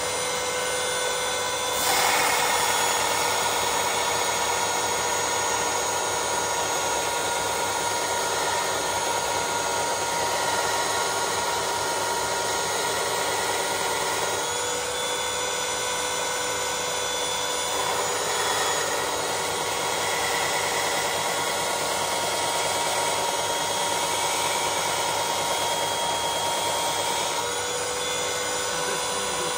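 Bosch belt sander running steadily with a motor whine. About two seconds in, a steel chisel is pressed onto the moving belt and ground at its bevel, throwing sparks. The grinding sound shifts a few times as the chisel is moved on the belt.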